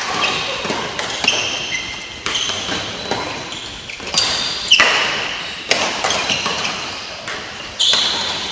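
Badminton rally: several sharp racket strikes on the shuttlecock, about one a second, echoing in a large hall, with short high squeaks of court shoes on the floor between them.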